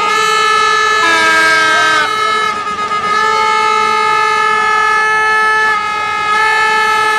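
Several handheld air horns sounding together in long held blasts, with one steady horn running through with short breaks about two and six seconds in, and a second, different-pitched horn joining for about a second near the start.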